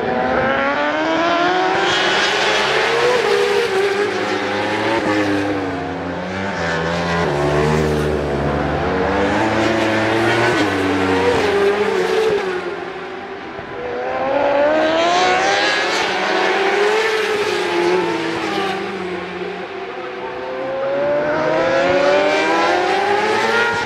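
Superbike racing motorcycles passing one after another at race speed, engines at high revs climbing in pitch as they accelerate through the gears. The engine sound comes in several loud waves as bikes go by.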